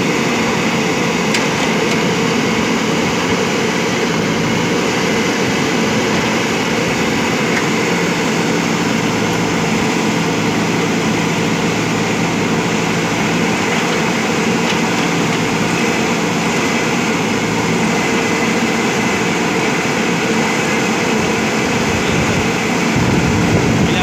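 JCB 3DX backhoe loader's diesel engine running steadily under working load as the rear backhoe arm digs.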